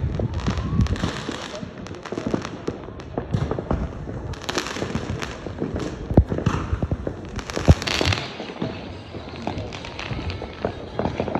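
Aerial fireworks going off in quick succession: a run of sharp bangs and booms, the two loudest about six and seven and a half seconds in, with bursts of hissing crackle between them.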